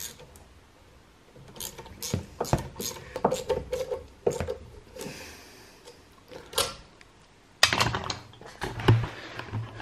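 Hand tools clicking and clinking against metal in irregular bursts while a turbocharger is fastened onto the exhaust manifold.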